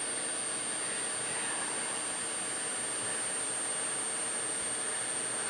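Small electronics cooling fan running steadily, with a faint high steady whine above it.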